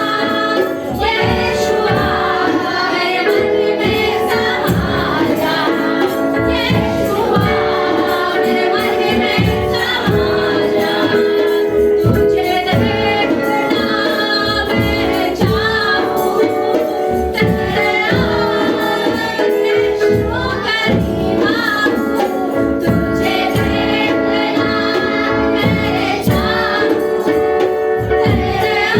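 Worship song: voices singing over instrumental accompaniment with a steady percussive beat.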